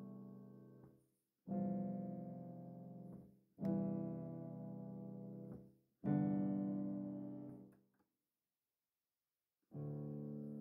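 Background music: slow piano chords, each struck and left to fade, one about every two seconds, with a short silent pause before the last chord.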